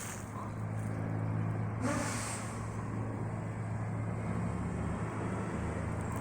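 Small private plane's engine droning steadily as it circles overhead.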